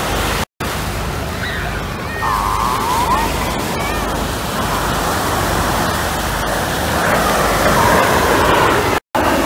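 Distant roar of the Red Arrows' BAE Hawk T1 jets flying in formation: a steady rushing noise that grows louder in the last couple of seconds as they come closer.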